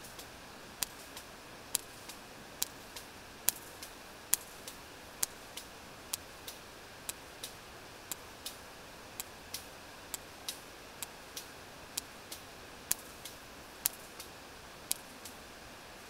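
Sperm whale echolocation clicks on a deep-water hydrophone: sharp, regular clicks about one a second, with fainter clicks in between, over a steady hiss of sea noise. These are the regular clicks of a whale foraging at depth, and they stop near the end.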